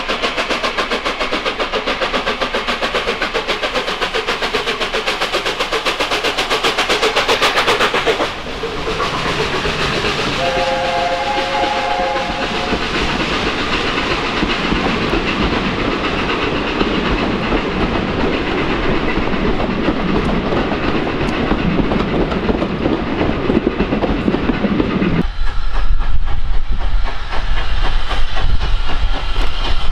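LNER A4 Pacific steam locomotive coming past under power, its rapid exhaust beats growing louder and then cutting off as it passes. About ten seconds in, its three-note chime whistle sounds for about two seconds. The steady rumble and clatter of its coaches rolling by follows, and near the end a deeper, lower rumble takes over.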